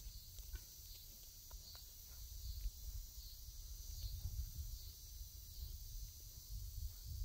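Open-field ambience: wind rumbling on the microphone, with a faint high chirp repeating about three times every two seconds.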